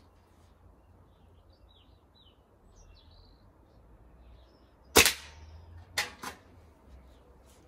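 A Hatsan Striker Edge .22 spring-piston air rifle fires once about five seconds in, a sharp crack, followed about a second later by two fainter clicks. Faint bird chirps sound before the shot.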